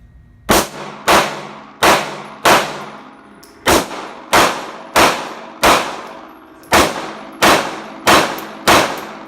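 9mm Glock 19 Gen 5 pistol firing twelve shots in three strings of four, about two-thirds of a second apart, with a short pause between strings. Each shot is sharp and loud with a ringing decay.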